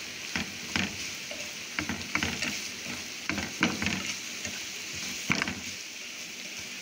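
Thin-cut carrot strips frying in oil with sugar in a non-stick frying pan, a steady sizzle, while a plastic slotted spatula stirs them, scraping and tapping against the pan every second or so.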